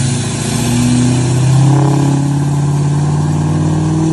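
L5P Duramax 6.6-litre V8 turbo-diesel revving through its large exhaust tip. The pitch climbs over the first couple of seconds, then holds steady at the higher revs.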